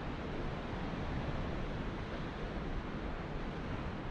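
Steady wash of sea surf breaking on rocks, with wind rumbling on the microphone.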